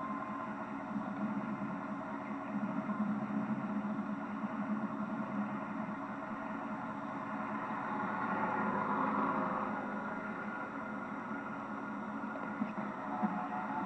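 A car driving: steady engine and road noise, swelling for a couple of seconds about eight seconds in.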